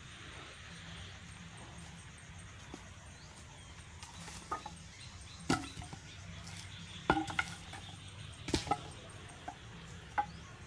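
Wooden poles knocking and clacking together as they are lifted and shifted in a pile: a handful of sharp, slightly ringing knocks starting about four seconds in.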